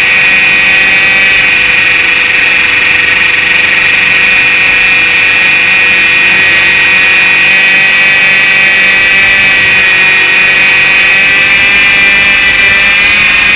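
Align T-Rex 450 Pro electric RC helicopter in flight, heard from a camera fixed to its frame: a loud, steady high-pitched whine from its motor and drivetrain over the rush of the rotors.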